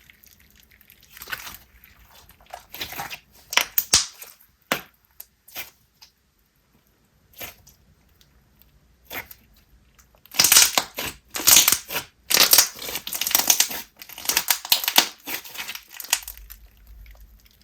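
Hands squishing and stretching glossy slime with a clear bingsu-bead topper, giving crisp bubble pops and crackling crunches. Scattered at first, then dense and steady for several seconds about ten seconds in.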